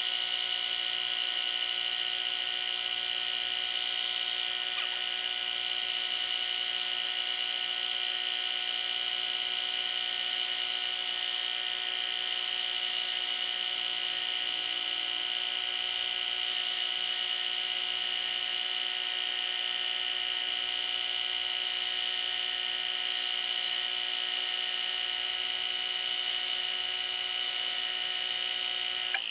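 Stationary woodworking sander running steadily, its motor giving an even high-pitched whine, while the ends of wooden legs are rounded over on it.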